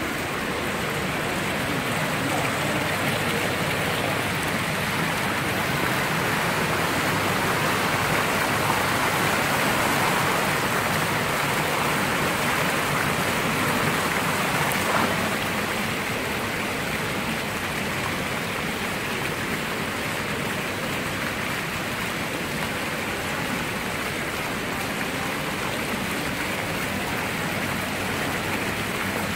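Water jets of an indoor decorative fountain splashing back into its basin: a steady rush of falling water, swelling slightly in the middle.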